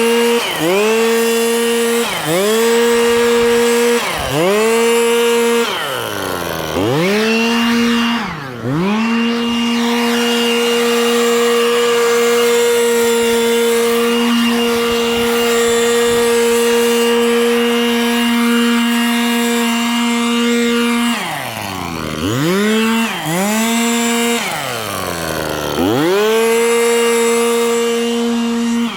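Small two-stroke engine of a handheld power tool running at high revs. The throttle is let off and squeezed again several times, so the pitch dips and climbs back, with a long stretch held steady at full throttle in the middle.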